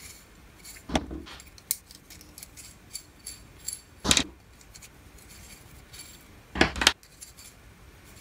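Small metal nuts and washers clinking as they are picked from a pile and fitted onto the ends of rods. Sharp clicks come about a second in, about four seconds in, and as a quick pair late on, with lighter ticks between.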